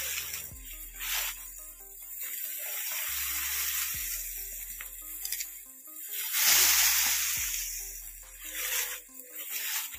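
Background music with soft, steady notes, over several bursts of rustling as groundnut plants are pulled from the soil and their leafy, pod-laden bunches handled; the loudest rustle comes about six and a half seconds in.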